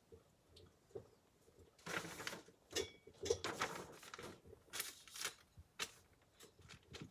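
Handling noise from parts being rummaged through: irregular rustling with small clicks and knocks, a few louder rustles about two, three and a half and five seconds in.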